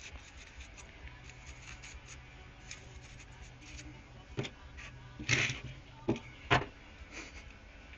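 Handling noise from hard parts being moved and rubbed on a work surface: light clicks and scraping, then four sharp knocks in the second half.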